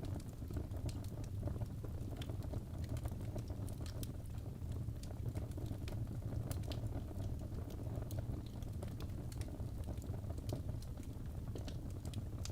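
Wood fire burning in a fireplace: steady low rumble of the flames with frequent small, sharp crackles and pops scattered irregularly throughout.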